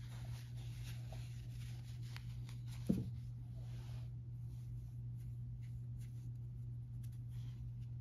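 Faint rustling and brushing of a gauze roll bandage being wound and handled around a hand, over a steady low hum, with one soft thump about three seconds in.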